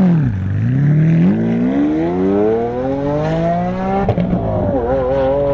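Lamborghini Aventador SV's V12 launching from a standing start: a brief flare of revs, then the pitch climbs steadily for about four seconds. A gear change near the four-second mark breaks the note, and it rises again more slowly as the car pulls away.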